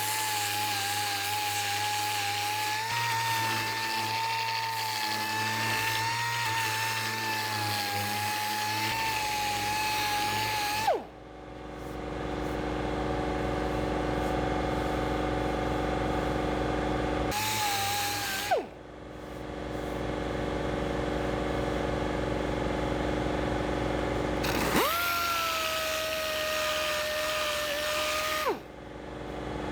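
A power tool running with a steady high whine, cut off about a third of the way in, run again briefly, then run for a few seconds near the end, its pitch dropping as it winds down each time. A steady lower machine hum fills the gaps between the runs.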